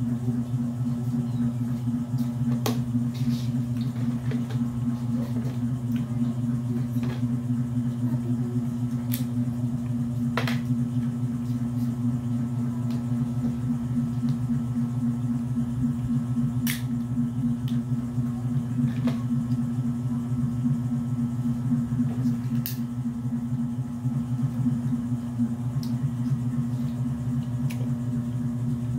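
A steady low hum, with scattered sharp clicks and cracks as a cooked mud crab's shell is picked apart by hand.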